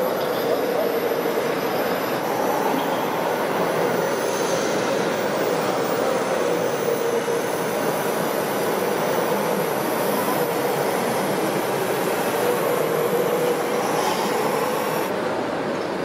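Small electric drive motors and gearboxes of radio-controlled model tractors whining steadily as they pull tillage implements through soil, the pitch drifting a little with speed.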